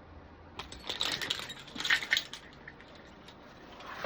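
Metal carabiners clinking and rattling as they are handled: a cluster of short clicks and jangles over about two seconds.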